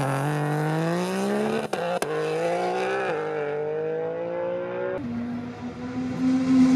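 Nissan R35 GT-R's twin-turbo VR38 V6 at full throttle, accelerating hard, its pitch climbing and then dropping back at each quick upshift. It gets louder near the end as the car passes at speed.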